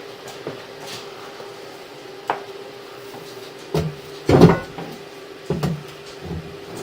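A few knocks and clatters of hard objects being handled, the loudest cluster a little past the middle, over a steady hum.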